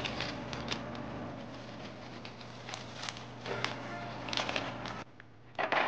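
Plastic packaging of an instant tteokbokki cup being handled and opened, crinkling and clicking in short bursts over quiet background music. The sound drops out briefly about five seconds in, then a louder rustle of plastic follows near the end.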